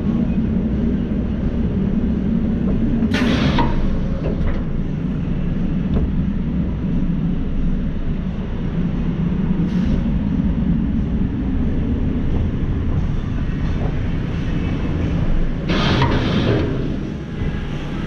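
Steel roller coaster train rolling slowly along the brake run into the station: a steady low rumble of its wheels on the track, with two short hisses, about three seconds in and again near the end.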